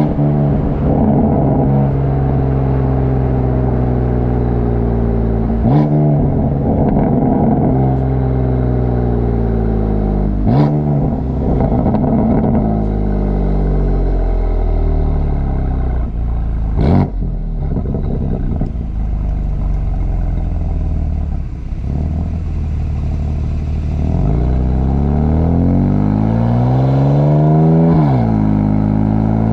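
BMW F82 M4's S55 twin-turbo straight-six heard at the exhaust while driving, the revs falling and rising through the gears. Three sharp exhaust cracks stand out, the loudest about halfway through. Near the end the revs climb steadily, then drop suddenly at an upshift.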